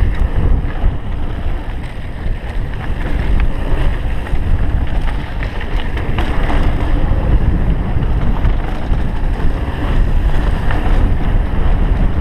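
Wind buffeting the microphone of a GoPro Hero 3 camera on a mountain bike ridden fast downhill, mixed with the rumble and rattle of the bike and tyres over a dirt trail, with a few sharp clicks from the rough ground.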